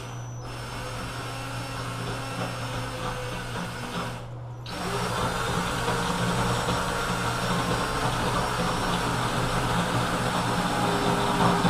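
Cordless drill running steadily as it bores a small pilot hole through porcelain tile. The motor eases off briefly about four and a half seconds in, then runs on a little louder.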